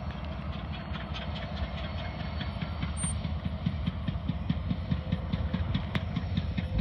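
Union Pacific diesel freight locomotives running, a steady low rumble with a fast, regular clatter over it.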